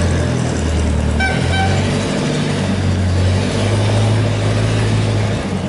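An engine running loudly and steadily, its pitch stepping up a little about three and a half seconds in, with two brief high beeps about a second and a half in.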